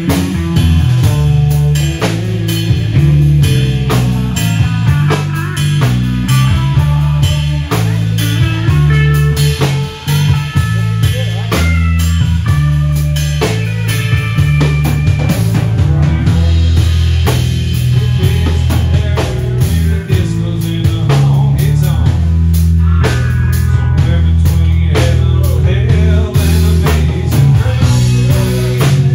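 Live country band playing an instrumental stretch of the song: guitar over bass guitar and a steady drum-kit beat, with no singing.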